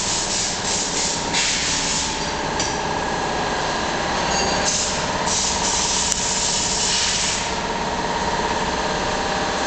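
Movil anticorrosion compound being sprayed onto a car's underside: a steady hiss that grows stronger and eases off in stretches, over a constant hum.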